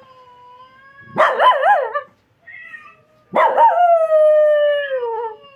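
Rottweiler howling: a faint held whine, then a loud wavering howl about a second in and a long howl near the middle that slides down in pitch as it fades.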